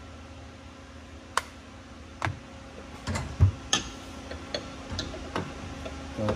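Scattered light clicks and knocks of items being handled and set down on a workbench, about eight spread over a few seconds, over a steady low hum.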